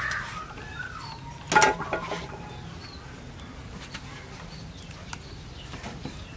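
A short animal call about one and a half seconds in, over a quiet background with a few faint clicks.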